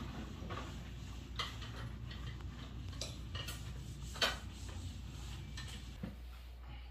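Scattered light clinks and taps, about half a dozen, the sharpest a little past the middle, over a steady low hum.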